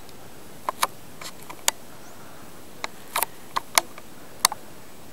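Irregular sharp clicks and taps, about ten in a few seconds, over a steady faint hiss: a handheld camera being carried by someone walking up a stone trail.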